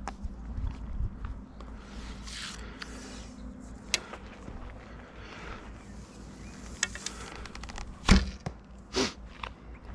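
An arrow shot from a bow: a sharp, loud thump about eight seconds in, followed a second later by a softer smack as the arrow strikes the target. A few light clicks come before the shot.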